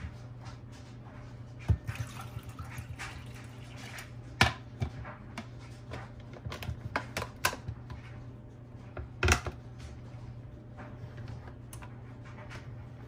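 Clicks and knocks from handling a single-serve coffee maker: its plastic lid clicking shut and a ceramic mug set down on the drip tray, a handful of separate sharp knocks over a low steady hum.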